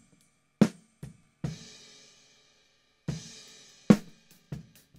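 Recorded snare drum track played back through the Atlas Pro Audio Leviathan opto compressor: sharp, separate snare hits, with cymbal wash from the kit bleeding in and ringing out twice.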